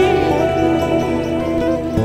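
Background music with long held notes over a steady low drone.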